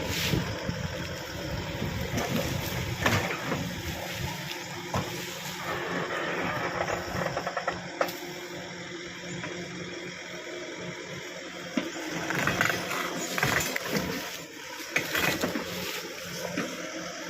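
Backhoe running while it works on a roadside tree, with rustling and cracking of branches and leaves and a few sharp knocks, strongest in two bouts in the second half.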